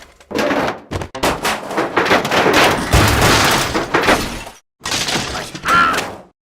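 Cartoon sound effects: a long, loud stretch of noisy crackling and crashing, then a shorter burst after a brief break, ending in a short squeak-like tone.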